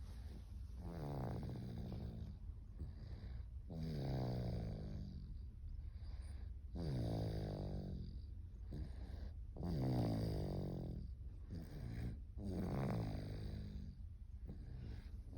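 A nine-month-old baby snoring in her sleep, with a pitched snore about every three seconds, each lasting about a second.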